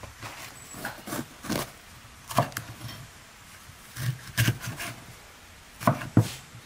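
Chef's knife slicing a yellow bell pepper on a wooden cutting board: about a dozen crisp knocks of the blade through the pepper onto the board, in short uneven bursts, the loudest two near the end.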